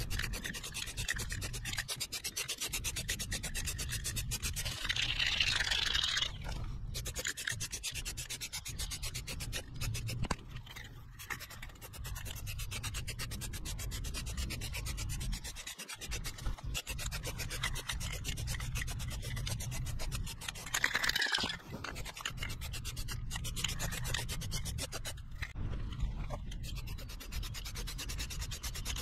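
Aerosol spray can of Rust-Oleum filler primer hissing as it is sprayed, with two louder surges of hiss, over a steady low rumble.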